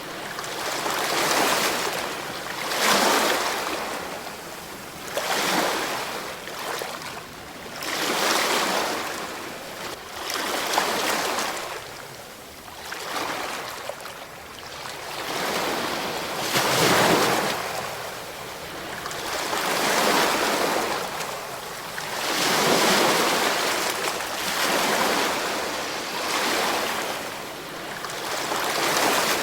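Ocean waves breaking and washing on a shore, a rushing hiss that swells and fades every two to three seconds.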